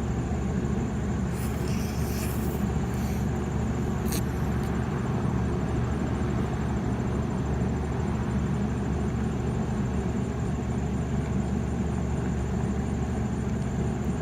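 Steady low rumble of a running vehicle, with a few faint clicks in the first few seconds and a sharp tick about four seconds in.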